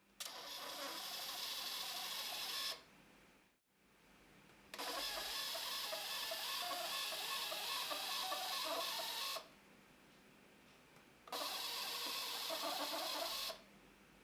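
DPP-350 mobile thermal receipt printer printing and feeding paper in three runs: about two and a half seconds, then a longer run of about five seconds, then about two seconds near the end, each stopping abruptly.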